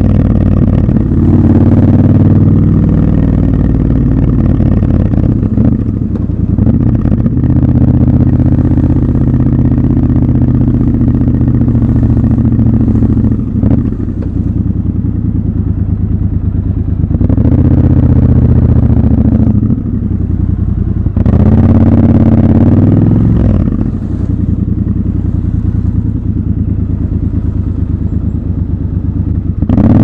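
Triumph Scrambler 1200 XC's 1200 cc parallel-twin engine running under way, the throttle opened and closed several times so the engine note rises and drops back.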